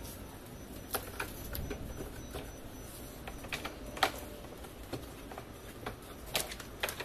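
Hard plastic clicking and knocking as black plastic corner connectors are handled and fitted onto the plastic frame of an Olymplast drawer cabinet. The clicks come irregularly, about ten of them, the sharpest about four seconds in.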